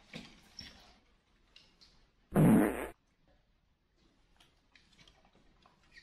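A single loud fart, about half a second long, coming a little over two seconds in, with faint rustling before and after it.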